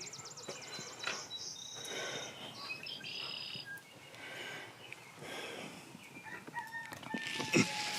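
Chickens clucking and calling in short, scattered calls.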